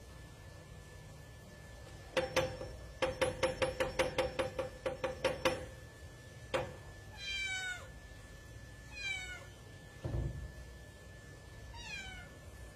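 A cat pawing at a padlock on a door's sliding bolt, rattling it against the wooden door in a quick run of metallic knocks, about five a second for some three seconds, then one more knock. The cat then meows three times, with a dull thump between the second and third meow.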